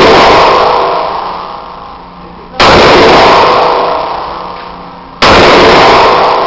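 Glock 19 9mm pistol fired twice, single shots about two and a half seconds apart. Each shot is a sudden blast that overloads the recording, then dies away slowly in echo over about two seconds.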